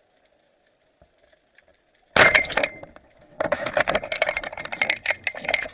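Speargun fired underwater at a barracuda: a sudden loud crack with a brief metallic ring about two seconds in. About a second later comes a dense, irregular clatter of clicks and knocks as the speared fish struggles against the shaft.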